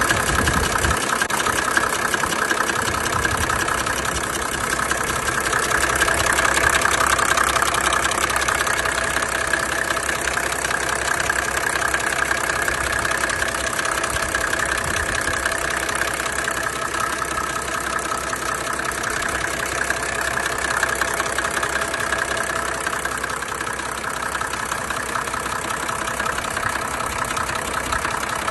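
Mercedes-Benz OM603 inline-six diesel engine idling steadily with a pretty loud knocking, tapping noise. The owner does not know the cause and fears the engine may be worn out.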